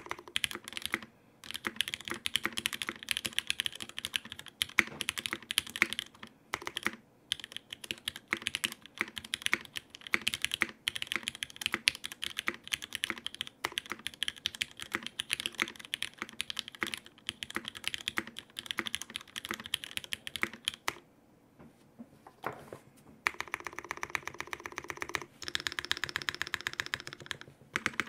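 Typing on a HAUS mechanical keyboard with lubed, broken-in Cherry MX Black linear switches on 62 g springs, mounted in an aluminium plate, under GMK keycaps: a steady stream of key clacks with short pauses. There is a longer pause about 21 seconds in, then a fast, even run of repeated key presses near the end.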